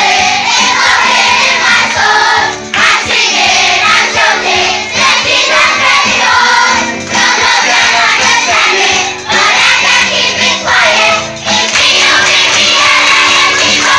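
A large group of young children singing together, loud and spread across many voices, with brief pauses between lines.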